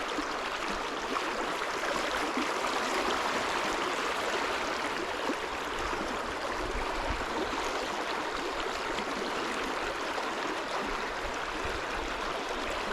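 Creek water running steadily over a shallow rocky riffle, an even rushing wash.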